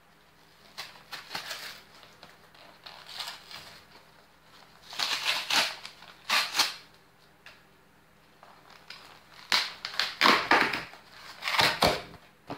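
A cardboard shipping box being torn open by hand: cardboard crunching, tearing and rustling in several irregular bursts with sharp crackles, the loudest in the last three seconds.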